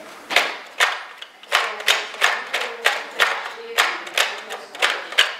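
Rapid plastic clicking from a Nerf Doomlands 2169 blaster's six-dart drum being loaded and turned by hand, about two to three sharp clicks a second.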